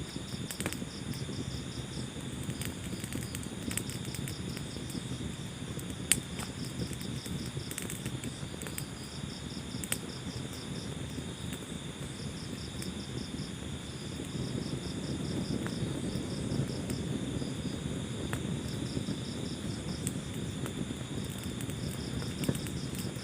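Wood fire crackling in a fireplace: a low steady rumble of flames with scattered sharp pops, the loudest about six seconds in. Crickets chirp in pulsed trains over it.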